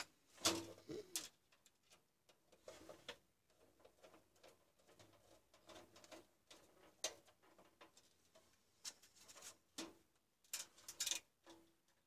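Scattered light taps and knocks from hands handling a steel computer case. A low bird call sounds faintly in the background about a second in and again near the end.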